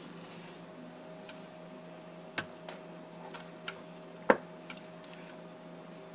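A tortoise eating chopped fruit from a plastic bowl: a few sharp clicks and knocks as it bites, the loudest a little after the middle, over a steady low hum.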